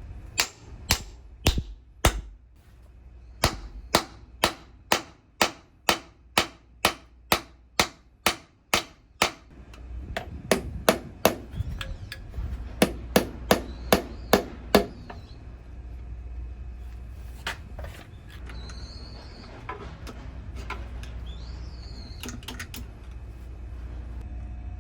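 Repeated hammer strikes: three blows, then a steady run of about two blows a second, then a quicker run, and a few scattered strikes near the end, over a steady low hum.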